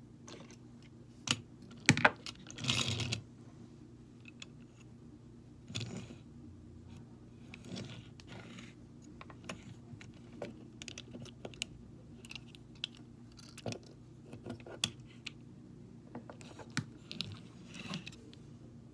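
Small die-cast toy cars and parts being handled and set down on a wooden tabletop: scattered light clicks and taps, with the loudest cluster of clicks about two seconds in followed by a brief rustle.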